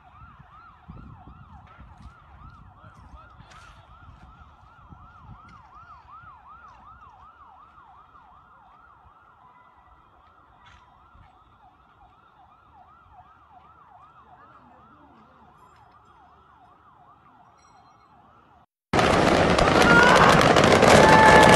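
Faint emergency-vehicle siren in a rapid, repeating up-and-down yelp, growing gradually fainter. It stops shortly before the end, and a sudden loud, dense noise takes over.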